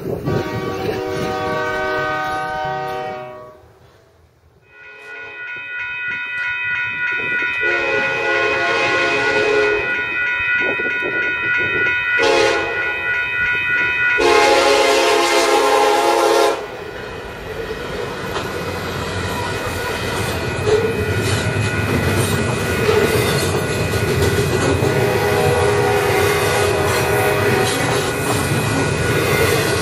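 A Union Pacific diesel locomotive's multi-chime air horn sounds a series of blasts for a grade crossing, ending in a long blast. The double-stack intermodal train then rolls past with a steady wheel rumble and clickety-clack on the rails.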